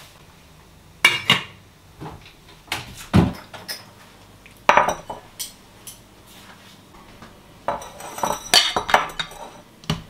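Kitchenware being handled: a steel pot, a ceramic bowl and a rice cooker's lid knocking and clinking. The sounds come as separate, irregular clinks and knocks, most crowded together near the end.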